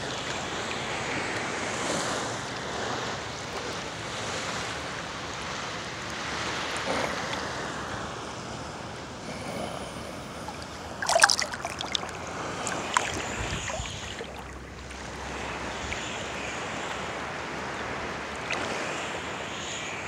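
Calm sea water lapping and sloshing around a phone held at the surface by a swimmer, a steady wash of small waves. A little past halfway a brief burst of sharp splashes comes close to the microphone.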